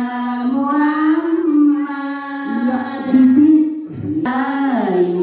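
Sundanese sinden singing a slow melody in long, wavering held notes that slide between pitches, with kacapi suling accompaniment (plucked zither and bamboo flute).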